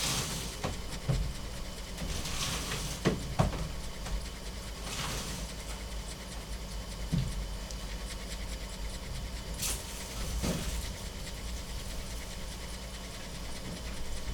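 A dog breathing with a few short breathy sniffs or puffs, over a steady low hum.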